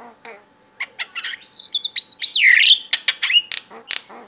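Javan myna calling right at the microphone: a varied string of short whistles, clicks and harsh notes, loudest in a long swooping whistle that rises and then falls about two seconds in.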